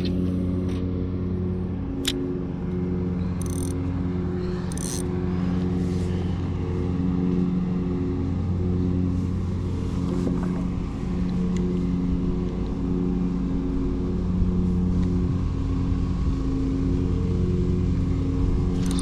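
An engine running steadily at an unchanging pitch, with a few brief clicks a few seconds in.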